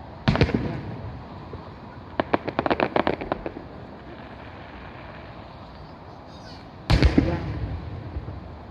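Aerial firework shells bursting: a loud bang with a rolling echo, then a quick run of sharp crackles, then a second loud bang with a rolling echo near the end.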